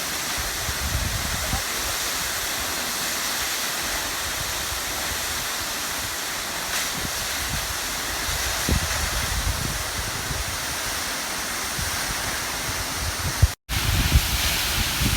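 Wli waterfall pouring steadily: a constant, even rush of falling water. The sound cuts out for an instant near the end.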